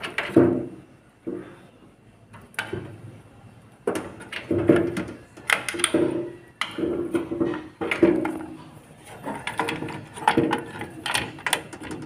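Hands working a SATA cable into a motherboard's SATA port inside a desktop PC case: a run of irregular clicks, knocks and scraping of plastic and metal parts.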